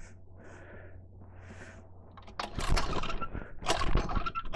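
Recoil starter of a 79cc mini-bike engine being yanked repeatedly from about two and a half seconds in, loud rattling pulls roughly once a second, as the engine fails to restart because it has run out of gas. Before the pulls there is a faint low hum.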